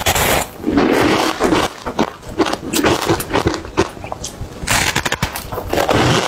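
Chunks of frozen matcha ice bitten and chewed close to the microphone: repeated bouts of crackling, crunching ice with sharp snaps, each lasting about a second.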